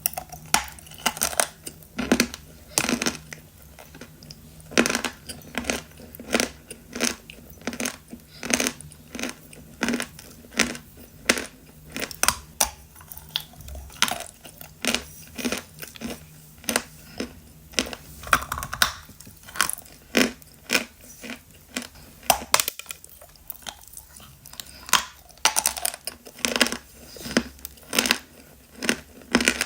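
Pieces of 'Khrapovsky' natural chalk being bitten and chewed close to the microphone: a steady run of sharp, dull crunches, about one or two a second, with a short pause a little past the middle.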